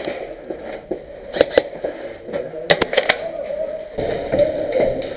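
Sharp clacks and knocks from an indoor airsoft game, several in quick pairs, with a steadier background noise after about four seconds.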